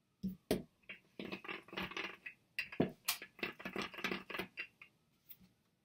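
Wooden rolling pin rolling out a slab of clay on a wooden board: a run of short rolling strokes broken by sharp knocks and clatters as the slab is lifted, turned and set back down.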